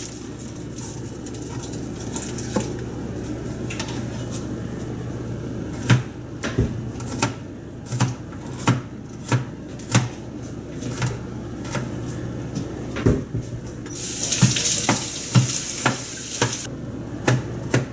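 A kitchen knife striking a cutting board while chopping garlic, in sharp, evenly spaced knocks about one or two a second that settle into a rhythm about a third of the way in. Near the end a hiss of running water from the tap lasts a couple of seconds.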